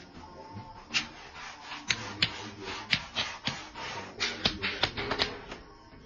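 A string of sharp, irregular clicks and taps from hand tools working metal ceiling framing, with several coming in quick succession a little past the middle.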